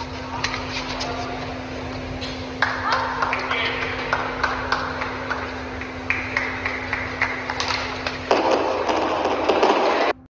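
Arena crowd clapping and cheering, with scattered voices, after the winning point of a badminton match. Many sharp claps run through it over a steady low hum. It grows louder about eight seconds in, then cuts off suddenly just before the end.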